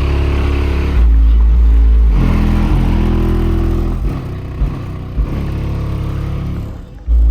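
Hip-hop beat with heavy, loud bass, the deep notes holding steady and changing pitch every second or two.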